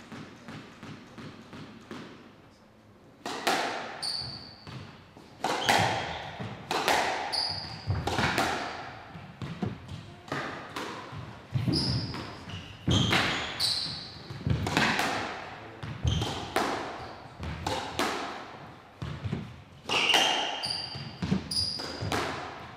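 Squash rally: the ball is struck by rackets and smacks off the court walls about once a second, each hit ringing in the court, with short high squeaks of court shoes on the floor between shots. The rally starts about three seconds in, after a few faint taps.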